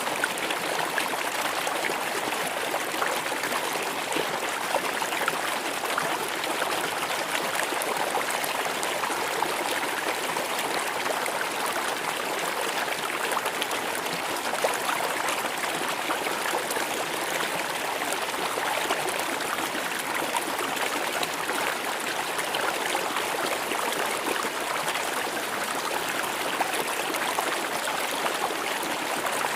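River water flowing and splashing steadily over rocks, with fine bubbling and trickling.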